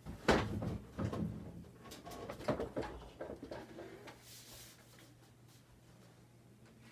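A sharp knock, then a few seconds of knocks and scuffing, like things being handled or a door or cupboard being worked, settling into quiet room tone.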